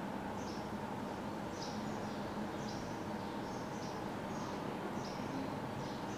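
Whiteboard marker squeaking on the board as it writes: short high squeaks repeating every half second or so, over a steady faint hum of room noise.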